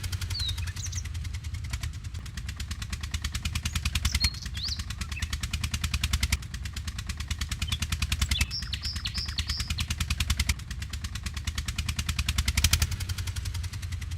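Small motor of a remote-control model tractor running with a low hum and a rapid, even pulsing, dipping briefly a few times.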